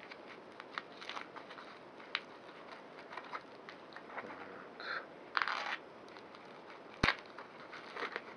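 Plastic packaging wrap crinkling and crackling as it is cut open with a craft knife and peeled off a small box, with a longer rustle about five and a half seconds in and a sharp click about seven seconds in.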